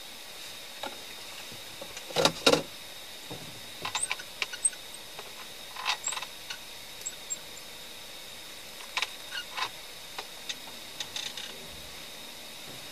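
Scattered short clicks, knocks and rustles, loudest about two seconds in, over a steady hiss with a faint high whine.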